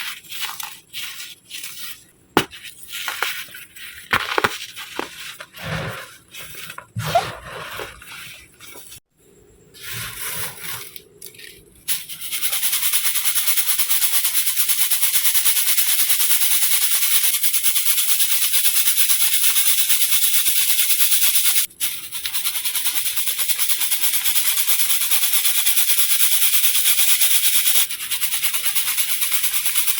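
Dry, pressed baking soda crushed by hand in irregular crunches, then, about twelve seconds in, a steady, dense fine rattling hiss of crushed baking soda powder sifted through a mesh sieve, broken once briefly.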